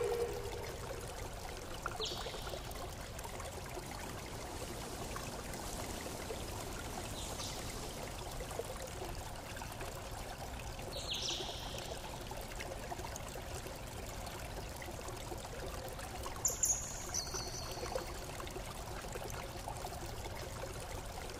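Steady rushing noise of running water, like a stream, with a few brief high chirps.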